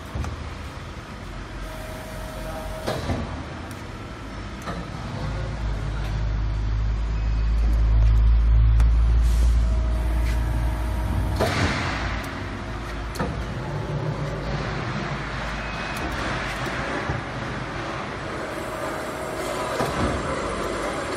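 Hydraulic CNC press brake running with a steady low hum. The hum swells for a few seconds, then a short hiss about halfway through.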